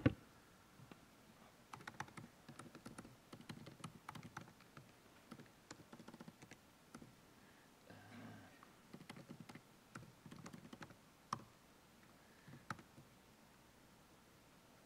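Faint typing on a computer keyboard: a run of irregular key clicks for about ten seconds, then a couple of louder single keystrokes near the end.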